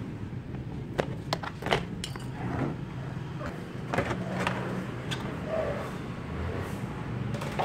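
Plastic wheel-well splash guard being handled and pulled back by hand: a series of sharp clicks and brief scraping of plastic, over a steady low hum.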